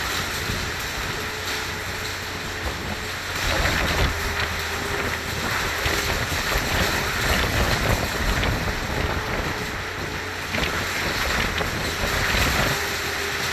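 Storm wind with rain buffeting the microphone as a steady rushing noise that swells in gusts from about three and a half seconds in, with a faint steady hum underneath.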